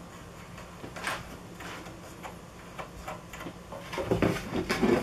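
Scattered light clicks and knocks of hardware being handled while the jig's fasteners are tightened down, with a louder run of rattling clatter from about four seconds in.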